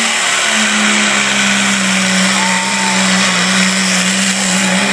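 Diesel pulling truck's engine running flat out under load as it drags the sled, a loud, steady high-revving drone with almost no change in pitch. The heavy black smoke shows it is fuelled hard at full power.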